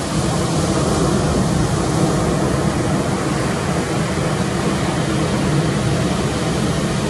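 Steady rushing noise of ocean surf at the beach, a continuous wash with no single breaks standing out.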